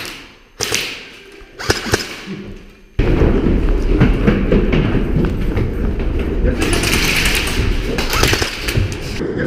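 A few sharp knocks in the first two seconds. Then, about three seconds in, a loud rumbling handling and movement noise on the action camera's microphone sets in suddenly and continues, with a brighter hiss added near the end as the player moves through the building.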